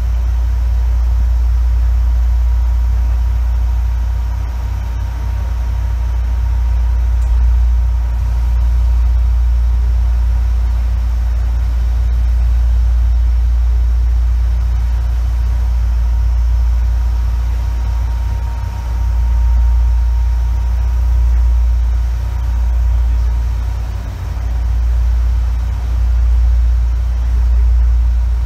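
Running sound inside the motor car of an Izukyu 8000-series (ex-Tokyu 8000) electric train: a loud, steady deep rumble with a thin steady high whine over it. The rumble swells and dips in the last ten seconds.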